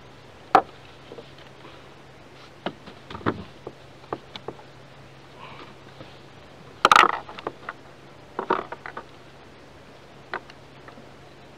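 Scattered knocks and clicks of a freshly caught fish and fishing gear being handled on a plastic kayak, with a louder clatter about seven seconds in and another burst just after. A faint steady hum runs underneath.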